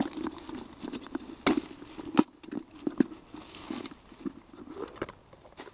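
Camping cook set being opened and rummaged through by hand: a run of light knocks and clicks with some rustling, the sharpest about one and a half, two and three seconds in.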